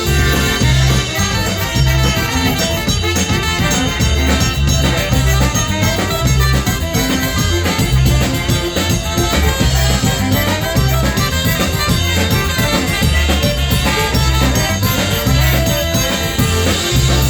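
Live polka band playing an instrumental break of the song, with no singing, over a steady repeating bass line and beat.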